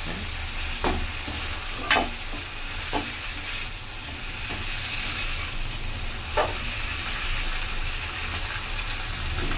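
Chicken sizzling as it fries in oil in a pan while being stirred, a steady frying hiss. A spoon knocks against the pan a few times, loudest about two seconds in and again about six seconds in.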